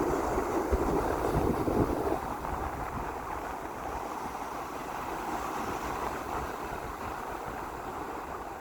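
Sea waves washing in, with wind rumbling on the microphone. The surge is louder for about the first two seconds, then eases to a softer, steady wash.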